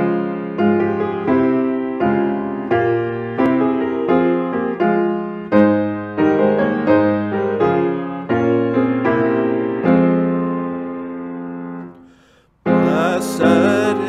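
Piano playing a hymn introduction, a series of struck chords and melody notes that each die away. About twelve seconds in it breaks off briefly, then the music starts again.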